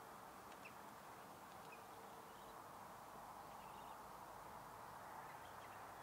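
Near silence on an estuary shore: a faint steady hiss of open-air ambience with a few faint, short, high bird calls in the distance.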